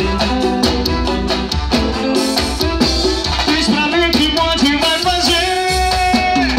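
Live band playing upbeat Brazilian dance music: drums and percussion keep a steady beat under a keyboard and a melody line that bends in pitch.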